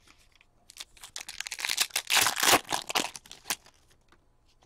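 A foil trading-card pack wrapper being torn open and crinkled, a dense crackle that builds about a second in, peaks past the middle, and stops shortly before the end.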